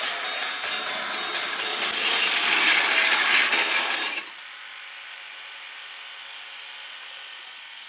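Model railway train running past on the track: a loud, rattling motor-and-wheel running noise that is loudest two to three seconds in, then drops sharply about four seconds in to a quieter, steady run.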